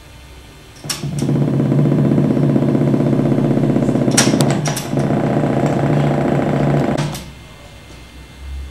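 Portable cassette boombox worked by hand: a loud, steady, low buzzing drone comes on with a click about a second in and cuts off with a click about seven seconds in, with a cluster of sharp button clicks midway.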